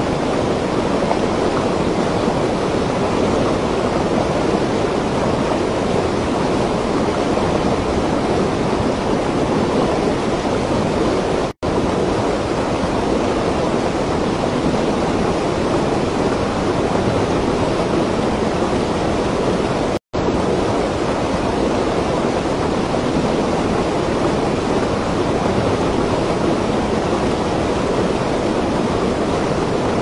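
Loud, steady rush of water pouring down a stepped concrete cascade, heard close up, broken twice by a momentary silence.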